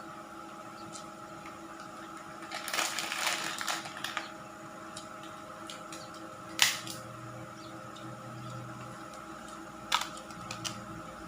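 A brief clatter of clicks about three seconds in and two sharp single clicks later, over a steady hum.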